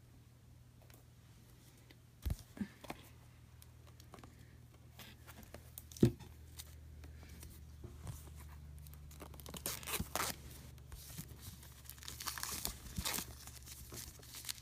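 Plastic shrink-wrap being torn and crinkled by hand off packaged game components. A few light knocks come in the first seconds, and the crinkling gets busier in the second half.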